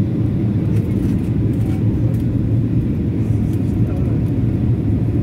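Cabin noise of a Boeing 737-800 in flight, heard from a window seat beside the wing: the steady low roar of its CFM56-7B turbofan engines and the airflow, with a constant low hum underneath.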